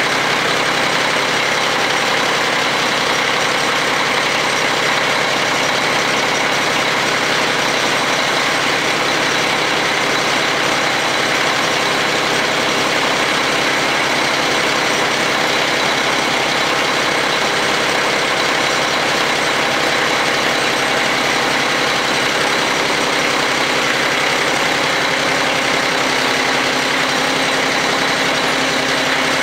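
Kioti CS2220 sub-compact tractor's three-cylinder diesel engine idling steadily, still cold just after a cold start at −22 °C.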